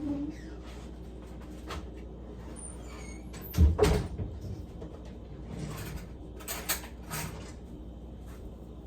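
Kitchen handling sounds: a loud knock about four seconds in, with a few lighter clicks and knocks after it, over a steady low hum.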